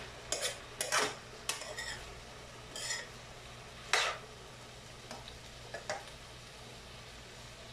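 Spatula stirring and scraping stir-fried bitter melon and egg in a nonstick frying pan: a run of short, irregular scrapes and clinks, the loudest about four seconds in, over a low steady hum.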